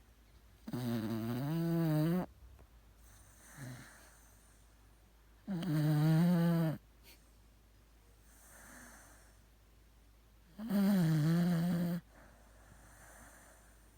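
Welsh corgi snoring: three loud snores about five seconds apart, each lasting about a second and a half, with soft breaths between them.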